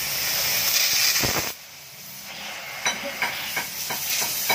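Electric arc welding rod burning against a steel motorcycle muffler, a steady hissing crackle. The arc drops off suddenly about a second and a half in, then crackles again with sharp pops.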